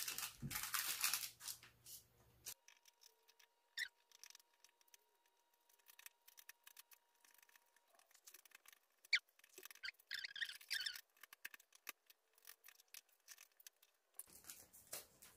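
Faint, scattered crisp cracks and scratches of brittle dalgona (honeycomb sugar candy) being snapped and picked apart by hand on paper, with paper rustling. There is a brief flurry of rustling and scraping near the start and another about two-thirds of the way through.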